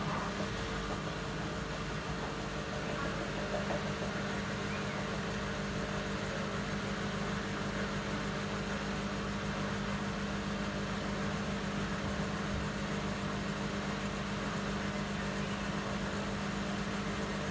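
Bosch WAT28370GB front-loading washing machine in an intermediate spin: the drum spins at a steady speed, with a steady motor hum and whir that holds one pitch throughout.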